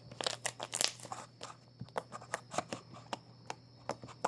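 Slime being squeezed and handled, giving a run of irregular crackling clicks and pops.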